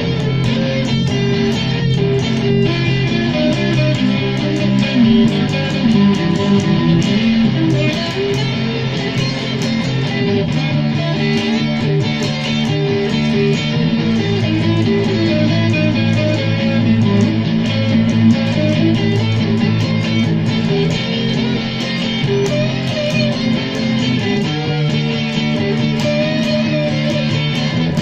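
Guitar-led music, with strummed and plucked guitars over a bass line, playing steadily.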